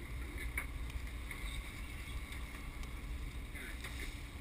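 Sportfishing boat's engines running steadily under way, a low rumble with the wake churning behind the boat.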